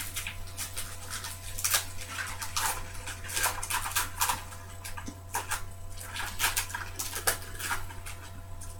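Trading cards being handled and shuffled, with irregular crisp clicks and rustles as the thin cards slide and tap against each other, over a steady low hum.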